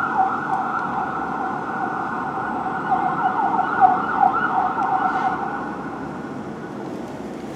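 Fire engine siren in a rapid repeating yelp, dying away about five and a half seconds in and leaving the steady hum of city traffic.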